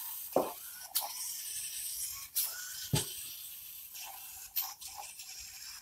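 Small Vex robot's drive and grabber mechanism working under a steady hiss, with about five scattered clicks and knocks as it picks up a tennis ball.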